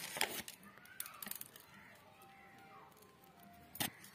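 Quiet handling sounds as colored sprinkles are scattered by hand over toasted bread on a tray: a few faint clicks and taps near the start and one sharper click near the end.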